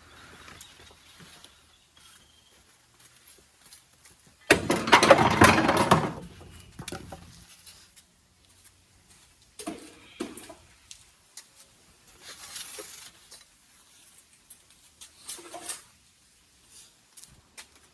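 Car interior parts being removed and handled: scattered knocks and rustling, with a loud burst of clattering and rattling about four and a half seconds in that lasts about two seconds.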